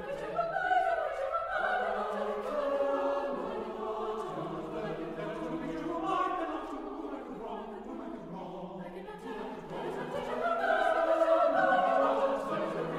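Choir singing a choral hymn, the voices swelling to their loudest a little before the end.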